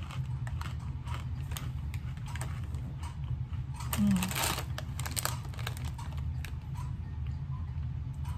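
A snack chip bag being handled, crinkling in scattered sharp crackles, with a louder rustle about four seconds in, over a steady low hum.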